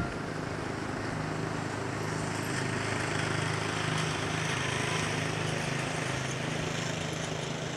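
Airbus A320-216's CFM56 jet engines on final approach, a steady distant jet rumble that swells slightly toward the middle, with a low steady hum underneath.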